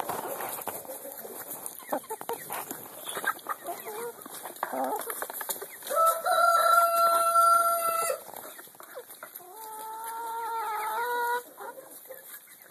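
Hens pecking and scratching at vegetable scraps in a trough, with short clicks and soft clucking. A rooster crows loudly about six seconds in, one long held call, then crows again more quietly around ten seconds in.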